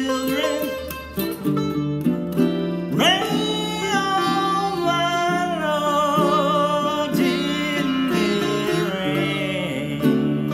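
Baritone ukulele strumming chords under a sitar playing bending, wavering lead notes, with a man singing.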